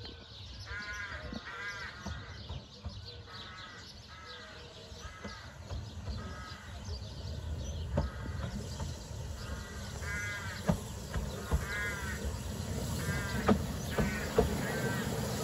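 A crow cawing repeatedly, a dozen or so short caws. Under it, the narrow-gauge steam locomotive 'Talyllyn', running light engine, comes closer. A low rumble and sharp clicks from its wheels over the rail joints grow louder in the second half.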